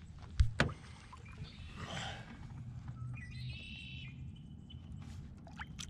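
Smallmouth bass being released over the side of a boat: a sharp knock about half a second in, then a short splash of water as the fish goes in. A brief high warbling call sounds just past the middle.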